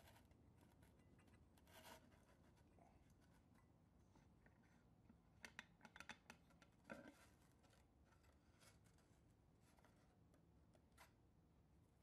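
Near silence, with a scatter of faint, irregular metal clicks as a small wrench turns a nut on a sheet-metal bracket, most of them together about five to seven seconds in.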